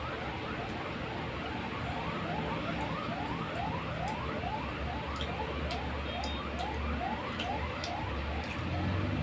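A siren-like electronic tone sweeping upward again and again, nearly three sweeps a second, over a low steady hum.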